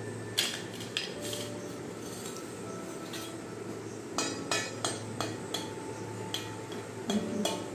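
Small stainless steel plate clinking and knocking as a toddler handles it on a tiled floor: irregular light knocks, several close together about four seconds in, some leaving a faint metallic ring.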